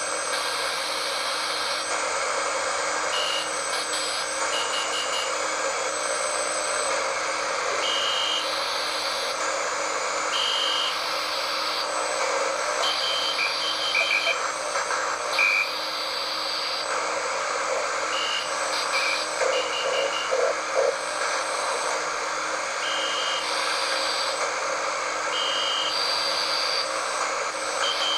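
Shortwave radio receiving Morse code near 7520 kHz, played through the radio's speaker. Short high beeps come as dots and longer dashes in groups that repeat every few seconds, over a steady hiss of static.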